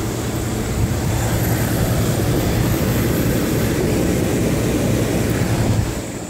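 A 9,500 BTU GE window air conditioner running on cool, its compressor humming under the steady rush of the fan. The level dips briefly near the end.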